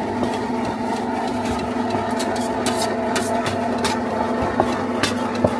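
Steady engine-like mechanical hum, with a few sharp clicks and knocks in the second half.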